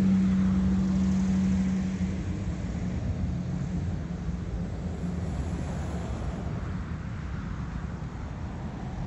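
Whelen WPS 4004 electronic outdoor warning siren sounding a steady low tone that fades away about two seconds in, leaving a low rumble of traffic. The uploader takes this alert for a failure of the siren and calls it very bad.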